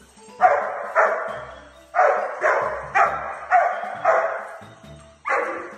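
Small dog barking repeatedly, about nine sharp barks at roughly two a second.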